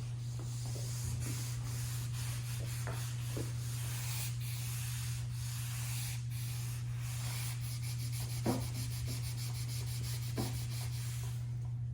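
A cloth rag rubbing back and forth on a rigid core vinyl plank, scrubbing a stain off the surface with mineral spirits, over a steady low hum.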